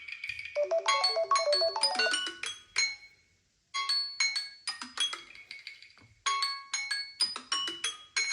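Samsung Galaxy phone tone playing: a bright marimba-like melody in quick repeating phrases. It cuts off to silence for about half a second some three seconds in, then starts again.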